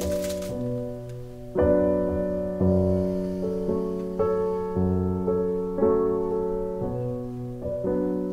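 Background piano music: slow, gentle chords, a new note or chord struck about once a second and left to ring.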